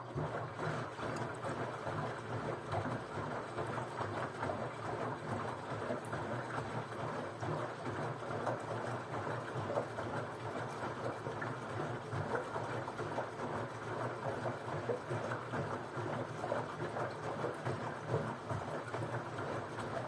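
Water and suds sloshing in a front-loading washing machine's drum as it tumbles, over a low hum from the machine, starting abruptly at the beginning. This is the machine's hot-water wash.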